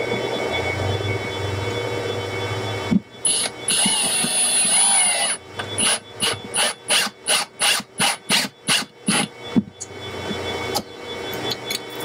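Cordless drill/driver driving screws into plywood to mount a patch panel bracket. After a few seconds of steady rasping, the motor runs for about two seconds with a wavering whine, then gives a string of short trigger bursts, about three a second.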